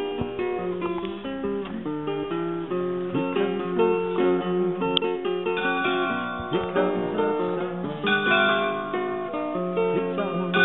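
Acoustic guitar playing an instrumental piece: a quick run of plucked notes over a steady bass.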